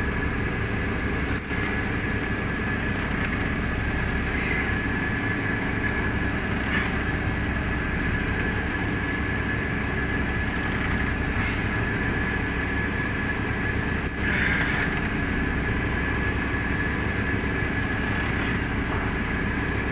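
Fishing boat's engine running steadily, a low even drone with a thin high whine held on one note.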